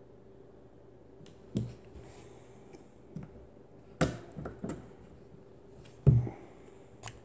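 Scattered sharp clicks and knocks from a Ruger LC9s pistol being handled for takedown, its slide eased back and its takedown pin worked with a small tool. The loudest knock comes about six seconds in.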